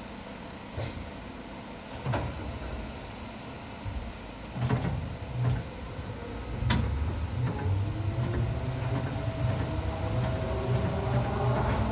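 Inside an electric commuter train car, Seibu set 263F: a few sharp knocks in the first seconds, then the train pulls away, with a low rumble growing about halfway through and the traction motor whine rising steadily in pitch as it accelerates.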